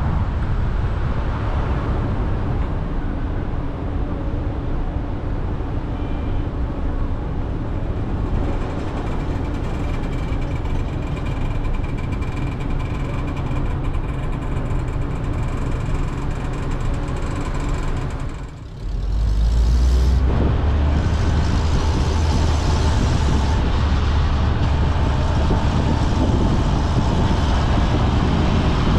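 Steady road and traffic noise of a car driving through city streets: a continuous rumble of tyres and engine. About two-thirds of the way through it dips briefly, then comes back louder with a heavier low rumble.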